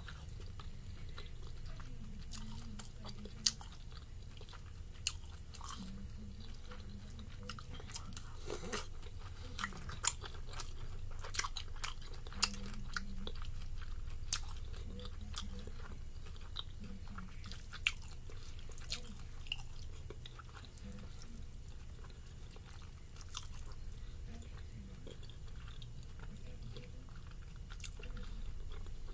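Close-miked person chewing and biting into pan-fried dumplings, with sharp wet mouth clicks and smacks scattered throughout, busiest in the first half and sparser in the last third, over a steady low hum.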